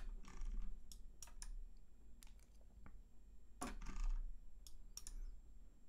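Sparse, irregular clicks from a computer mouse and keyboard at a desk, about a dozen over a few seconds, with a couple of short scuffing noises, over a low steady hum.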